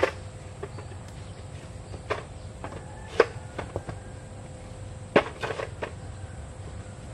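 Irregular sharp knocks and clatters of tools and wood being handled on a low work stand. The loudest come at the start, about three seconds in and about five seconds in, with lighter taps between them, over a faint steady background drone.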